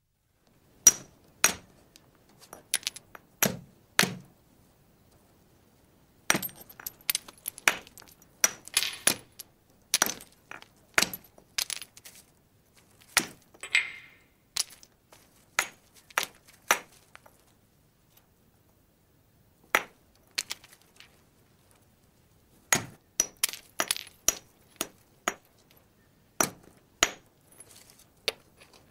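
Flint knapping: a hammerstone striking the edge of a flint core, sharp glassy clinks and knocks in irregular runs of several strikes with short pauses between.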